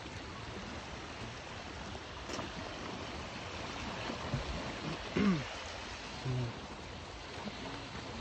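Steady rush of the fast-flowing River Ness, with a short falling sound about five seconds in.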